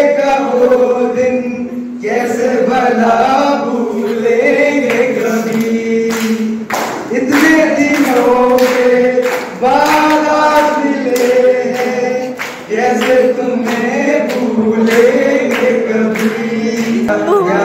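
A group of young men singing a song together into a microphone, in sustained phrases a few seconds long with brief breaks between them.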